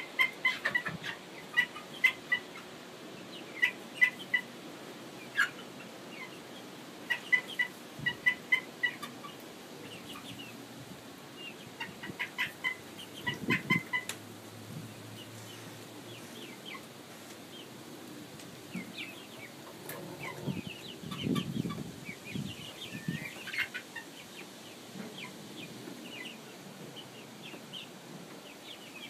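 A flock of young chickens (pullets) peeping and chirping, short calls coming in quick runs of several at a time, busiest and loudest in the first half.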